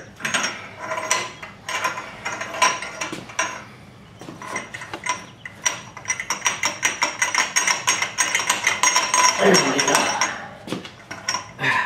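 Metal clinks and scrapes, then a fast run of ratchet clicks, about seven a second, for several seconds, as a large socket is worked round to seat the exhaust gasket in the engine's exhaust port.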